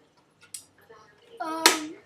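A child's brief vocal sound with a sharp snap in the middle of it about one and a half seconds in, and a fainter click about half a second in.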